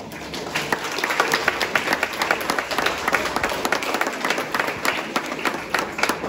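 Audience applauding, many hands clapping at once; the applause starts suddenly and builds over the first second, then carries on steadily.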